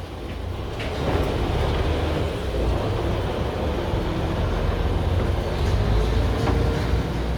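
Steady low rumble of a moving vehicle, with a faint steady hum near the end.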